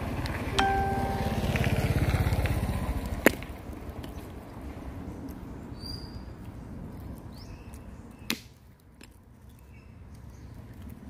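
A motor vehicle passes, its low engine rumble swelling and then fading over the first few seconds, with a short steady tone about half a second in. Two sharp clicks follow, one about three seconds in and one about eight seconds in, over quiet outdoor background.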